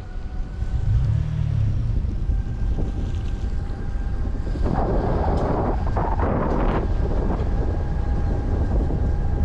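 Car driving along a dirt road, heard from inside the cabin: a steady low rumble of tyres and engine, with a louder stretch of rough noise about five seconds in that lasts a couple of seconds.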